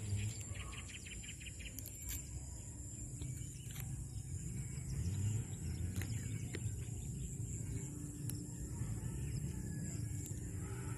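Birds chirping and calling, over a steady high-pitched hum and a low rumble.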